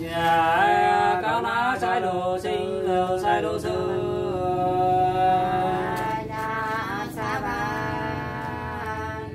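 Unaccompanied hát sli singing, the Nùng folk song of Lạng Sơn: slow, long-held vocal notes with wavering ornaments, starting abruptly and easing off in the last few seconds.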